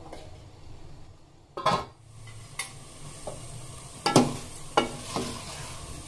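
Metal spoon stirring and scraping seviyan (vermicelli) in a steel pot, knocking against the pot's side several times, the loudest knock about a second and a half in. A soft sizzling hiss from the hot pot runs under the stirring from about two seconds in.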